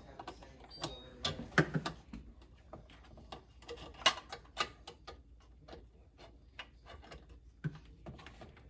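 Irregular plastic clicks and knocks as an LG refrigerator's water filter housing assembly is handled and fitted into place, with two louder knocks about a second and a half in and about four seconds in.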